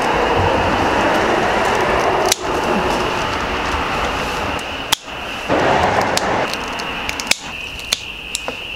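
Handling and cutting noise as a chain pickerel is cleaned with kitchen shears on a plastic cutting board, with a few sharp clicks near the end. A steady, high chorus of crickets runs behind it.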